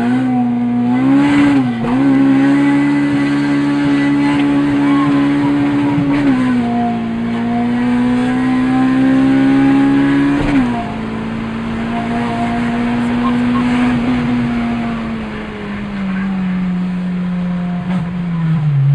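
Car engine under hard acceleration, heard from inside the cabin: revs climb through the gears, with sudden drops at upshifts about 1.5, 6 and 10.5 seconds in. Over the last few seconds the revs fall steadily.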